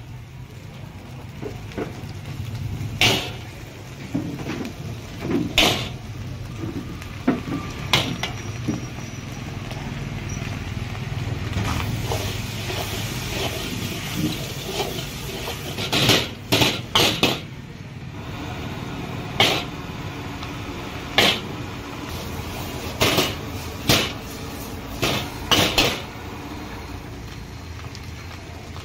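Metal utensil clanking against a pan, sharp irregular strikes, some in quick runs, over a steady low hum.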